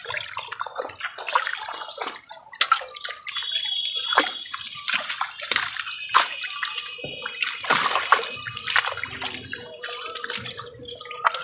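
Many live fish thrashing in shallow water gathered in a net, with hands splashing among them: a dense, irregular run of splashes and sloshes.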